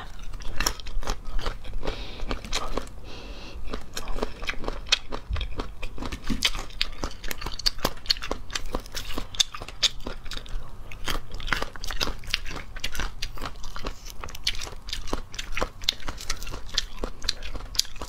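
Close-up crunching and chewing of crisp snake fruit (salak) flesh, a rapid, irregular run of sharp crunches.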